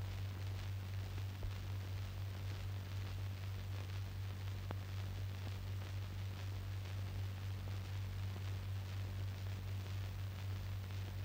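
Steady low hum with a faint crackling hiss: the background noise of an old film soundtrack, with no other sound, and a single faint tick about halfway through.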